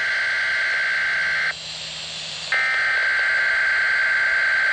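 Weather radio speaker playing the SAME digital alert header that opens an Environment Canada weekly test: a buzzing two-tone data signal in two bursts. The first burst stops about a second and a half in, and the next starts about a second later.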